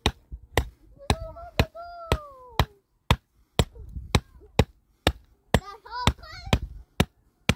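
Steady hammering, about two sharp blows a second, keeping an even rhythm throughout, with a child's high voice sounding between the blows.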